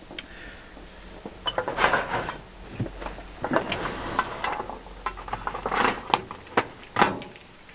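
Small hard objects clicking and clattering as they are handled by hand, with irregular sharp clicks and short rattles.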